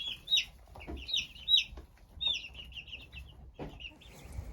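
Chicks peeping, many short high calls in quick runs, a few of them louder, with brief pauses between runs.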